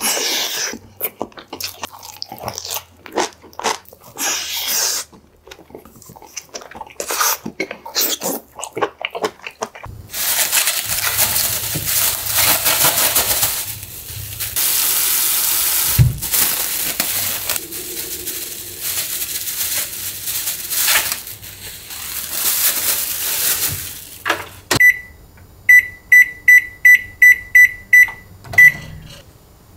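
Irregular clicks and taps, then crinkling of a thin plastic bag as a head of cabbage is handled. Near the end a Sharp microwave oven's keypad gives about ten short, sharp beeps in quick succession as its buttons are pressed.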